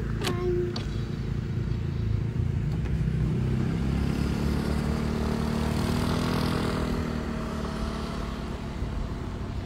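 A motorcycle engine passes close by, swelling to its loudest in the middle and fading away toward the end, over the steady low running of engines. There is one sharp click just after the start.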